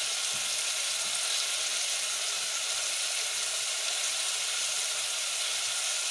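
Chopped carrots, green peppers and tomatoes sizzling steadily in hot oil in a pot.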